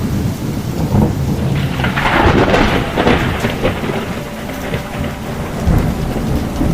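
Thunder rumbling over steady rain, the noise swelling louder about two to three seconds in.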